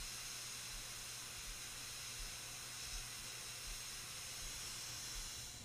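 Handheld gas torch burning with a steady hiss while its flame heats the end of a steel fish tape to red; the hiss stops near the end.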